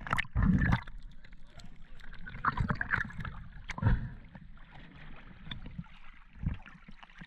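Water sloshing and splashing at the surface as a swimmer moves through it, with the camera dipping in and out of the water; a few louder splashes come at the start, around the middle, and near the end.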